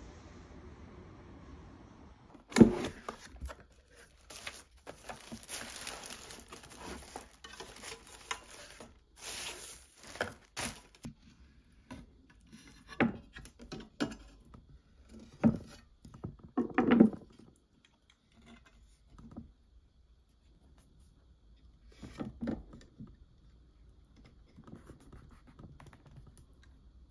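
Handling sounds from unpacking and setting up an aluminium laptop stand: rustling, tearing packaging and scraping, with a sharp thunk about two and a half seconds in. Then a few separate knocks and clacks as the metal stand is set down and its hinged arms are moved.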